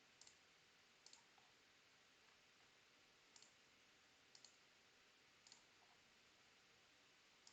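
Faint computer mouse clicks, about six single or double clicks spaced a second or so apart, over quiet room tone.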